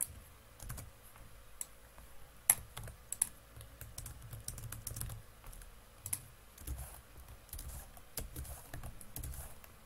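Computer keyboard typing: irregular keystrokes with short pauses, the loudest about two and a half seconds in.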